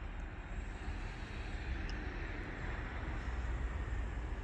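Steady low outdoor rumble and hiss, growing slightly louder after the first second or so, with no alarm tones.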